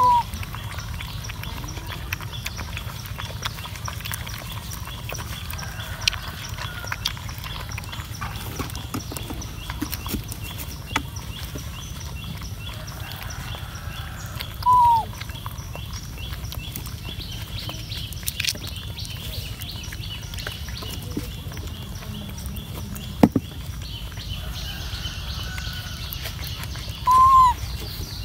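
Puppies lapping milk from a shallow plastic dish: a long run of small wet clicks. Three short, high calls from one of the young animals come near the start, about halfway and near the end, each rising and then falling.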